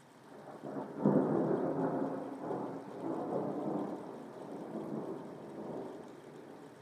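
Thunder: a sudden clap about a second in that rolls into a long rumble, swelling and slowly fading over the next few seconds, over steady rain.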